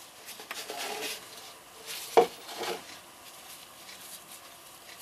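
Handling noise, then a hard object set down with a sharp clatter about two seconds in and a smaller rattle just after.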